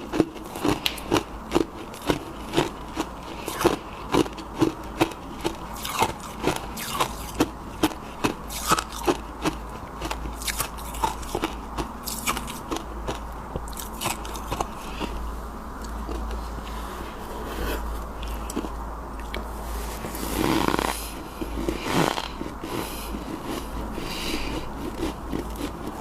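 Close-miked chewing of freezer frost and soft ice: sharp crunches about one to two a second at first, giving way to softer, denser crunching.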